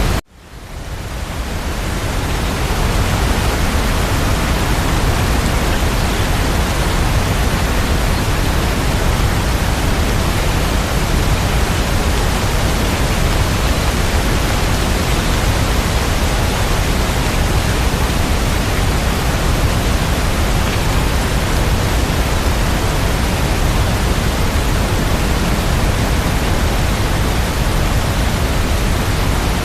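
Steady rain sound, an even dense hiss of rainfall with no separate drops standing out. Just after the start it cuts out abruptly and fades back in over about two seconds, like a loop restarting.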